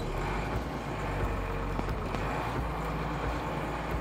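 A vehicle's engine running steadily, with a low hum and a wash of noise over it.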